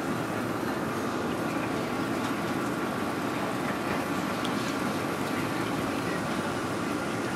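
A steady machine drone with a faint constant whine, holding an even level throughout.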